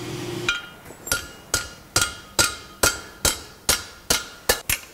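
Blacksmith's hand hammer striking a red-hot steel bar over the horn of an anvil in a steady rhythm, about two to three blows a second, the first blows ringing briefly.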